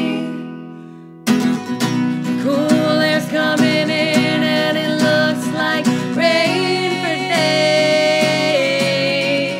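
Acoustic guitar strummed with a woman singing. The music dies away over the first second, then guitar and voice come back in together at once and carry on steadily.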